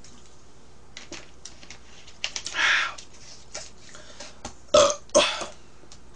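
A woman burping after gulping cola: one longer burp about two and a half seconds in, then two short, loud burps close together near the end.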